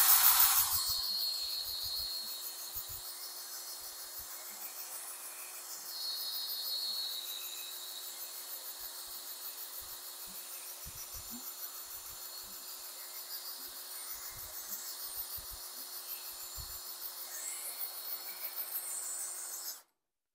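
DeWalt cordless drill spinning the oil pump of a Ford 200 cu in inline-six through the distributor opening, priming the oiling system. It starts loud, settles within a second or two into a steady run with a constant hum, and stops abruptly near the end.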